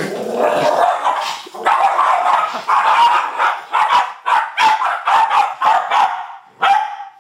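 West Highland white terriers barking over and over, several sharp barks a second.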